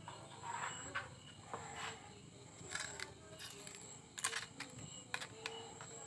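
A knife scraping and tapping inside a grilled mud clam shell as the meat is pushed out into a ceramic bowl: scattered light clicks and scrapes, the sharpest about four seconds in.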